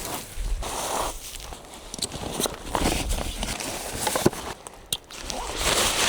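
Footsteps and rustling of someone walking outdoors, with wind buffeting the microphone as a low rumble for the first few seconds and a couple of sharp clicks about four and five seconds in.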